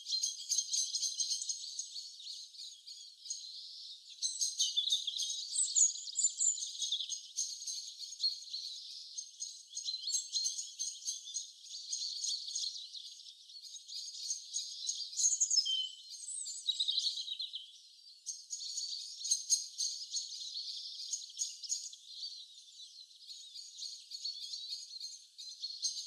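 A chorus of small birds chirping and trilling, many short quick calls overlapping, with a few whistled notes sliding up and down. The sound is all high and thin, with nothing low beneath it.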